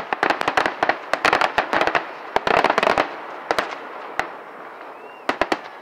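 Aerial fireworks going off in a rapid barrage of sharp bangs and crackling, thinning about three seconds in to a few separate bangs and then trailing off.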